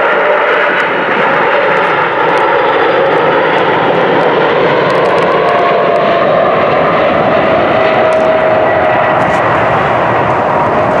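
Boeing 747-400's four General Electric CF6-80C2 turbofans running loud as the jet flies low on final approach to land. A steady jet noise with a whine that drifts slightly in pitch.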